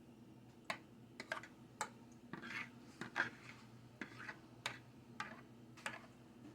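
Metal fork clinking and scraping against a bowl as strained noodles are pushed back into it: a dozen or so faint, irregular taps with short scrapes between them.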